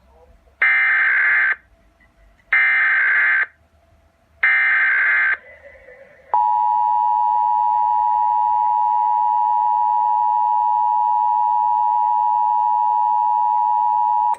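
Emergency Alert System opening: three short bursts of the screeching digital SAME header, then the steady two-tone EAS attention signal held for about eight seconds.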